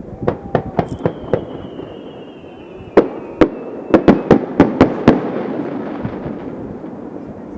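Fireworks going off: a quick run of small bangs, a thin whistle slowly falling in pitch, then a louder volley of sharp bursts about three seconds in, trailing off into crackle and echo.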